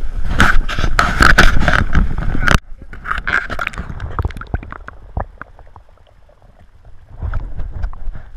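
A loud, noisy stretch for about two and a half seconds, which cuts off suddenly to the muffled sound of pond water heard from a camera underwater: faint gurgling and scattered small clicks over a low rumble, growing a little louder near the end.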